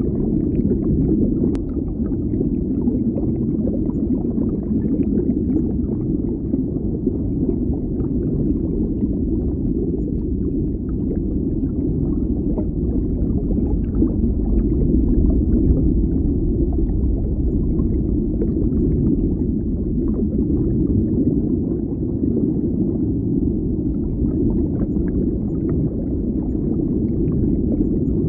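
Steady, low, muffled underwater bubbling, with many faint small pops and crackles running through it.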